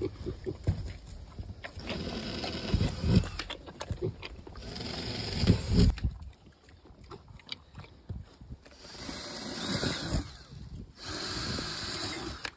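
A Landrace piglet and Juliana pigs slurping milk from a rubber feed pan, snuffling and grunting as they drink.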